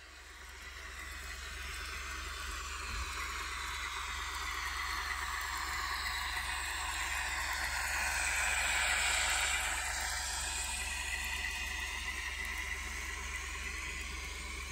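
Fleischmann N-gauge RZD M62 model diesel locomotive and its freight wagons running past: the rolling of small wheels on the track mixed with the locomotive's sound-decoder engine sound. It swells as the train nears, is loudest about nine seconds in, and then fades as the wagons go by.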